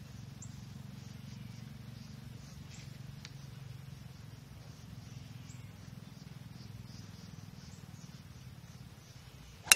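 Tee shot: a golf club head striking the ball, one sharp crack near the end with a brief ring after it, over a steady low outdoor background with faint high chirps.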